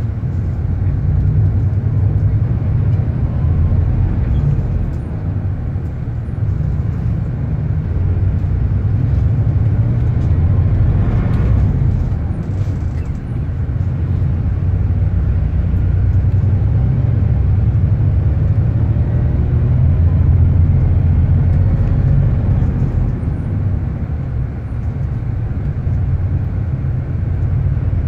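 Engine and road noise heard from inside a moving city bus: a steady low rumble.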